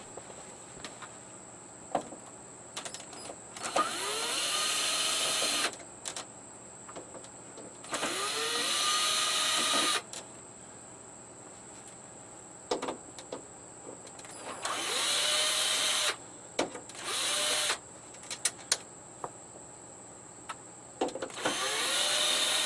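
Cordless screw gun running in five short runs of one to two seconds, its motor winding up in pitch each time as it backs screws out of the TV's rear cover. Small clicks and handling noises come between the runs.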